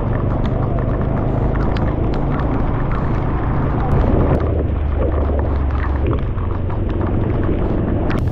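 Steady low rumble of a motorbike ride: wind buffeting the microphone over the bike's engine and road noise, with scattered faint ticks.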